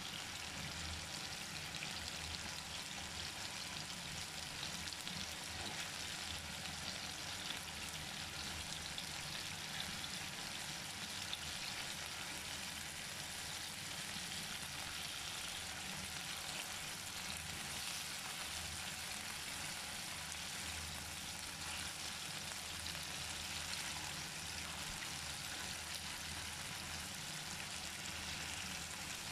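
Marinated chicken tikka pieces frying in oil on a flat griddle pan: a steady sizzle.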